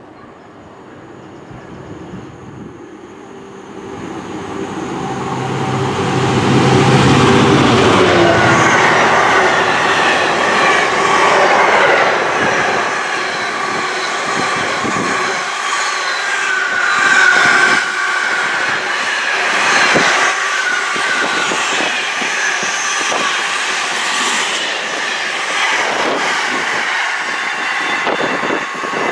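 GBRf Class 66 diesel locomotive, with its two-stroke V12 engine, approaching and passing close by, loudest about seven seconds in, followed by a long train of loaded container flat wagons rolling past with steady rattle and wheel clatter over the rail joints.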